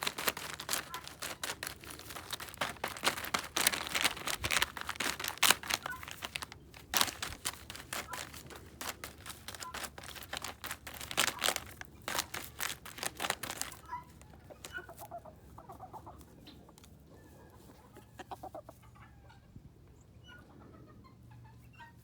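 Bantam rooster pecking rapidly at something that crackles and pops like bubble wrap, a dense run of sharp taps and pops. About 14 seconds in the pecking thins to scattered taps, with soft clucking.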